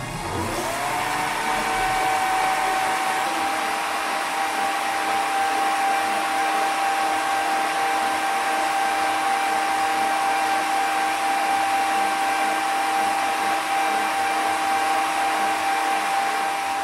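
Electric motor of a homemade power hacksaw starting up, its whine rising in pitch over about the first second, then running at a steady speed with a steady hiss.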